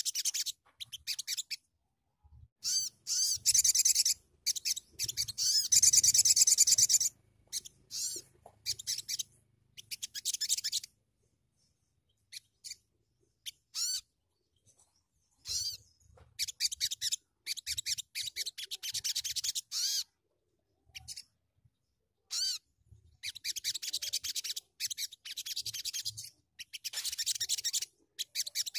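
Young little spiderhunter (sogok ontong) giving rapid high-pitched chattering chirps in bursts of a second or two. There is a quiet pause of a few seconds about halfway through, broken by a few single notes.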